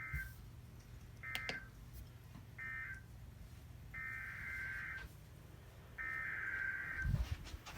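Emergency Alert System SAME data bursts from NOAA Weather Radio, each a short buzzy two-tone digital chirp. First come three brief end-of-message bursts about a second apart, closing the previous message. Then come two longer header bursts, each about a second long, that open the next alert. A low thump falls near the end.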